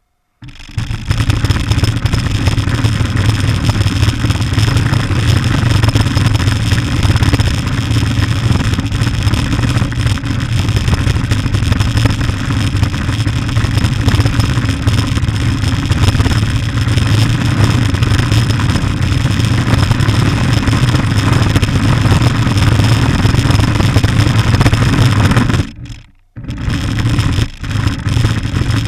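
Radio-controlled car running, its motor and drivetrain making a loud steady rumble with a faint high whine. About 26 seconds in it cuts out briefly, then comes back in short stop-start spurts.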